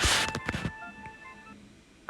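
Short electronic beep tones at several pitches, like telephone keypad tones, sounding during the doorbell's Wi-Fi pairing, after a brief hiss that fades in the first second.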